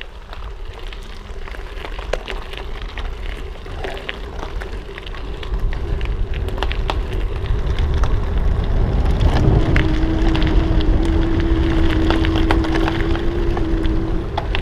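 Wind buffeting the helmet or handlebar camera and gravel bike tyres crackling over loose gravel on a fast descent, with small stones ticking throughout; it grows louder as speed builds. A steady hum joins about halfway through and holds for several seconds.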